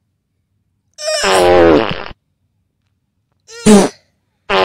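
Fart sounds, in three bursts: a long buzzing one about a second in, a short sharp one about three and a half seconds in, and another long one starting just at the end.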